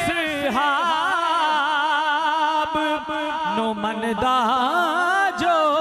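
A man's voice singing a Punjabi naat into a microphone, drawing out long held notes whose pitch wavers and glides in ornaments.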